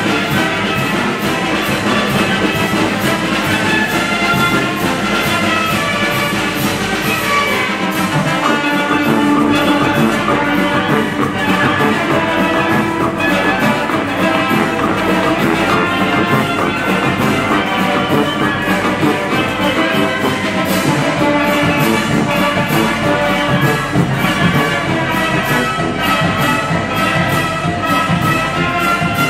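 Oaxacan village brass band (banda filarmónica) playing a dance tune: brass instruments carrying the melody over a steady percussion beat.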